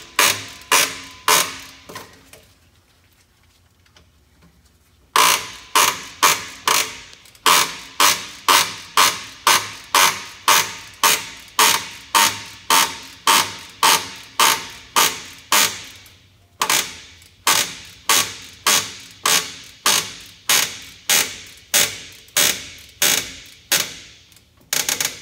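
Slack adjuster on a Peterbilt semi's drum brake being backed off with a wrench, clicking step by step as the brake shoes are released from the drum. The sharp clicks come evenly, about two a second, in three runs with two short pauses.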